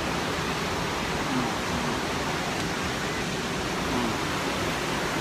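Steady rushing roar of the Sipiso-piso waterfall.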